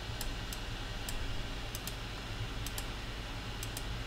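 Computer mouse clicking: about eight sharp clicks, several in quick pairs, at irregular intervals over a low steady hum.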